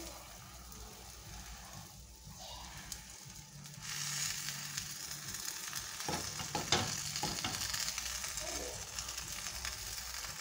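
A folded, cheese-filled tortilla sizzling as it fries in fat in a frying pan. The sizzle grows louder about four seconds in, and a few soft knocks come around six to seven seconds as it is pressed down by hand.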